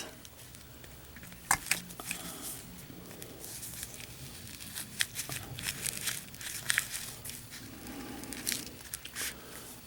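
Faint rustling and scattered small clicks of a mil-spec nylon webbing pouch being worked onto a 1.5-inch belt through its belt loop.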